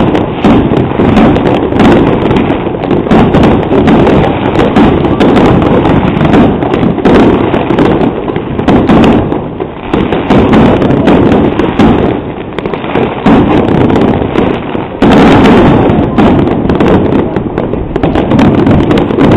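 Dense barrage of firecrackers and fireworks going off all around, countless bangs overlapping into one continuous crackle, with a sudden louder burst about fifteen seconds in. Very loud and of poor quality, as recorded on a digital camera's microphone.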